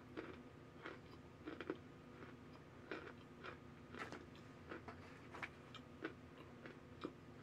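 Chunks of cornstarch crunching as they are chewed: faint, short, crisp crunches about twice a second.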